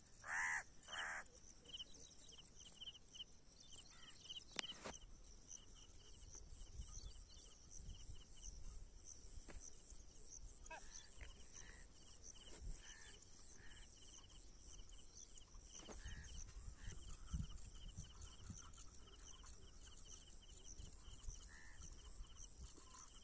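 Open-field ambience: two loud bird calls right at the start, then a steady high chirping throughout with a faint low rumble and a few fainter calls midway.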